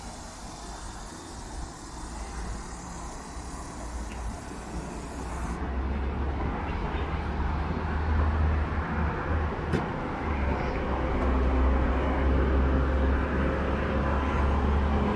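Road traffic with a low rumble, growing steadily louder, and a vehicle engine's steady hum coming in over the second half.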